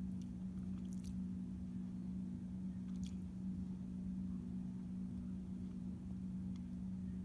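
Twin-head rotating patio ceiling fan running: a steady low hum, with a few faint ticks.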